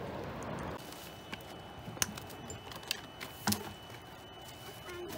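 A steady rushing noise cuts off under a second in. Scattered light clicks and knocks follow: plastic bottles and shoreline debris handled on rock as they are gathered into a plastic bag.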